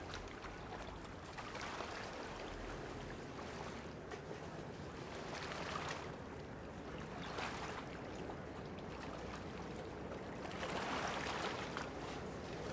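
Water washing against the riverbank in surges every couple of seconds, over the steady low hum of a large ship passing on the river.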